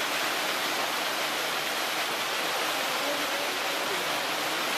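Steady rushing noise of running water, even and unbroken.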